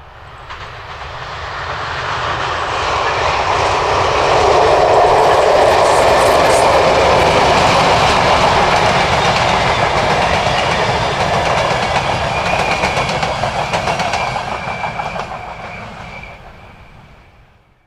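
A ČD class 754 'brejlovec' diesel locomotive hauling a passenger train of classic express coaches passes by. The sound swells as it approaches, holds loud through the middle with wheels clicking over rail joints, and fades as the train moves away, with a faint high whine near the end.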